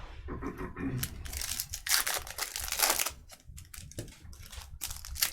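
Plastic shrink wrap on a hobby box of trading cards being torn and crinkled as the box is opened, in irregular crackling bursts with a short lull in the middle.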